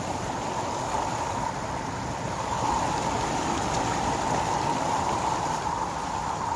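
A small stream running steadily, an even, unbroken sound of flowing water.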